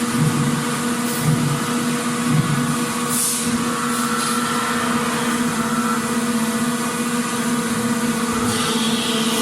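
Factory machinery running: a steady mechanical hum under constant noise, with a soft pulsing beat about once a second over the first few seconds and brief hisses about three seconds in and again near the end.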